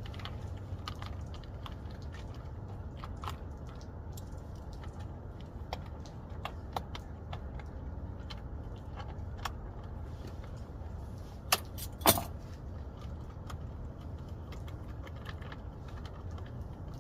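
Scattered light clicks and taps of hand tools and plastic trim as the 7mm bolts and the lower steering column cover come off, with two sharper clacks close together about two-thirds of the way through, over a steady low hum.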